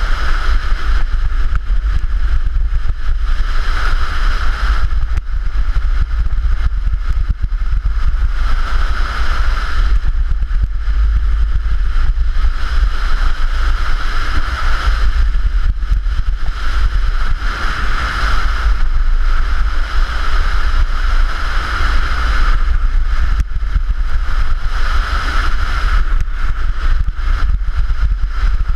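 Luge sled running fast down a bare concrete sliding track, heard from a camera riding on the sled: a steady heavy rumble under a rushing hiss that swells and fades every couple of seconds.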